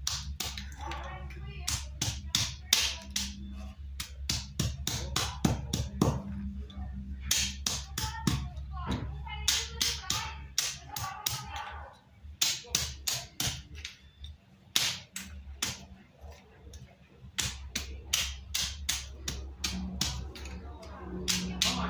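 Wooden mallet pounding chicken bones on a concrete floor, about three blows a second, crushing them into bone meal. The blows pause briefly about twelve seconds in and again a little later.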